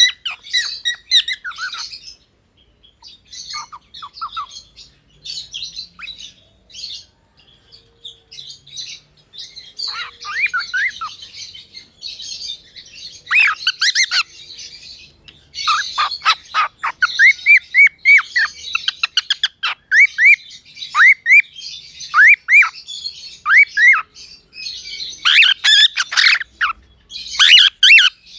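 Gray cockatiel chirping and squawking. Scattered short chirps and harsh squawks at first, then from about ten seconds in a busier run of quick whistled notes that sweep up and down, loudest near the middle and again near the end.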